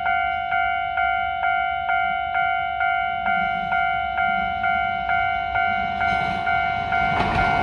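Railway level-crossing warning bell ringing with evenly repeated ringing strikes, about two a second. The rumble of an approaching electric train on the rails builds under it and swells near the end.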